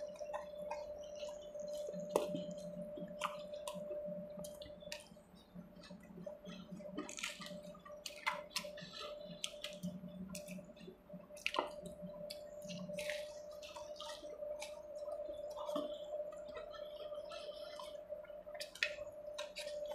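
Close-up eating sounds: wet chewing and lip-smacking as fish curry is eaten by hand, with many short sharp mouth clicks scattered throughout. A steady faint hum runs underneath.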